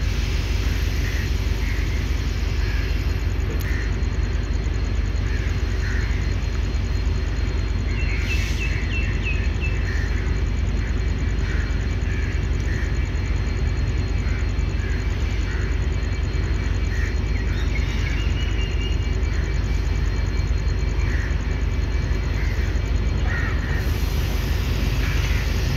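Steady low rumble of an outdoor railway yard, with scattered small bird chirps and a brief trilling call about eight seconds in and again near eighteen seconds.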